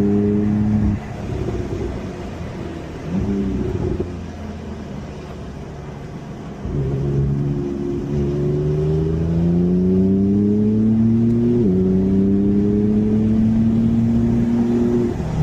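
Car engine under driving load: off the throttle and low for several seconds with a short rev blip about three seconds in, then accelerating from about seven seconds in, its pitch rising steadily, with one upshift near twelve seconds before it climbs again.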